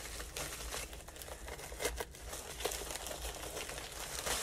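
Plastic packaging crinkling and rustling as it is handled, with irregular crackles all through.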